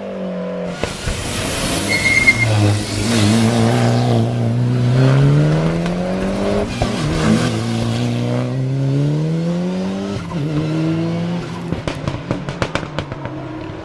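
A race car's engine accelerating hard up the hill climb. The revs rise, drop back at an upshift about seven seconds in and again at about ten seconds, then hold steady as the car pulls away. A loud rush of car noise comes in about a second in, and a quick run of sharp crackles follows near the end.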